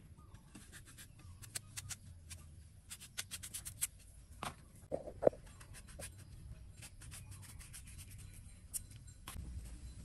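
Kitchen knife cutting and paring apple and guava: a run of small crisp clicks and scrapes as the blade goes through skin and flesh, with a couple of louder knocks a little after five seconds in.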